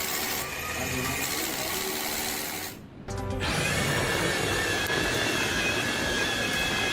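Background music, broken by a short drop-out about three seconds in. After it comes a steady high whine over a noisy bed, like a power tool running.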